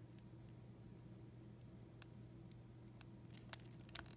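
Near silence: faint steady room hum with a few faint clicks, the clearest about four seconds in.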